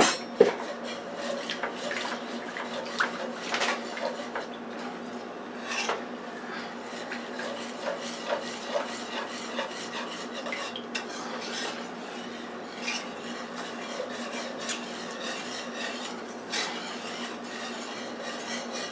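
A utensil stirring and scraping around a metal frying pan, with frequent small clicks and one sharp clack about half a second in. Milk is being worked into a thick roux-and-cream sauce to thin it.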